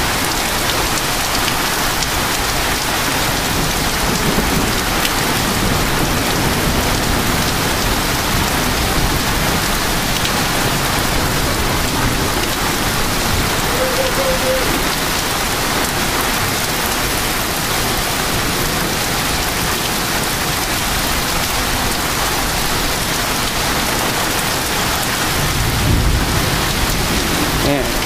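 Heavy thunderstorm rain pouring down with wind, a loud, steady rush. A low rumble swells near the end.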